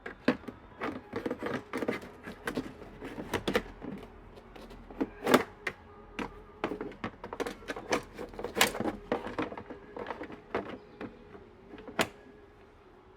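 Irregular clicks, knocks and rattles of INTEX spa pump parts being handled and worked on by hand, with a few sharp louder knocks.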